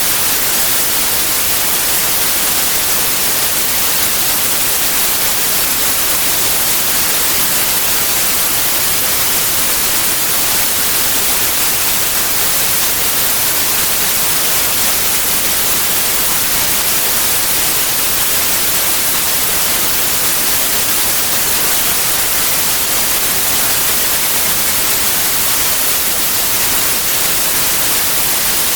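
Steady white noise: an even, unchanging hiss, brightest in the high pitches.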